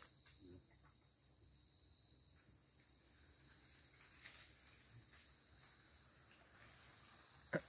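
Faint, steady chirring of an insect chorus, high-pitched, with a few soft ticks.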